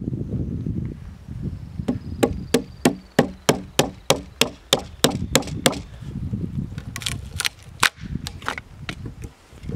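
A large timber-framing chisel being struck into a wooden beam: a quick run of sharp blows, about three a second, then a pause and a few more strikes near the end as a chunk of wood splits out of the notch.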